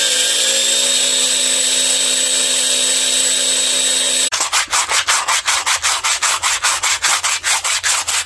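A small power sander runs steadily with a constant whine. About four seconds in it gives way abruptly to rapid back-and-forth sanding strokes by hand, about four a second.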